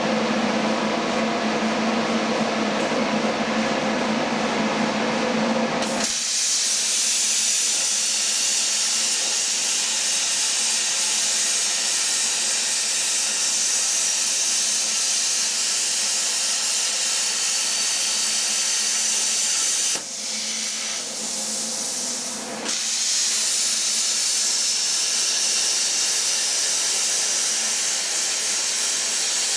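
CNC plasma cutter cutting half-inch steel plate: a loud, steady hiss of the arc and air. It runs with a lower hum for about the first six seconds, then brightens into a full hiss, drops briefly about twenty seconds in, and resumes.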